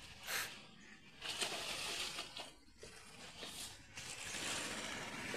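Water splashing from swimmers' arm strokes, coming in uneven bursts a second or so long.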